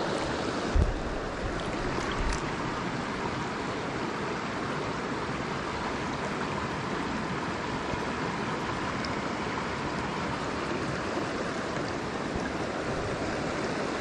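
Shallow creek water running over rocks, a steady rush heard close to the surface. A couple of soft low knocks come in the first few seconds.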